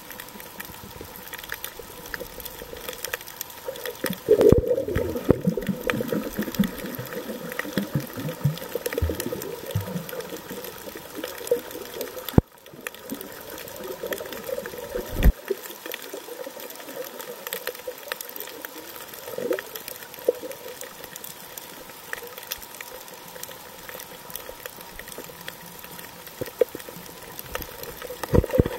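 Underwater sound while snorkeling: muffled water movement, with bubbly swirls now and then and scattered sharp clicks.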